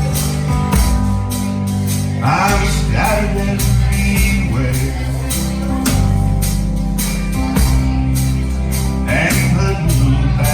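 A band playing a song with a steady beat and a sustained bass line. Short sung phrases come in about two seconds in and again near the end.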